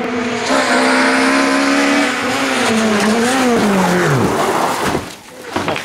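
Peugeot 208 rally car's engine running hard at high revs through a corner, the pitch holding, wavering, then falling away about four seconds in, with a hiss of tyres and gravel under it.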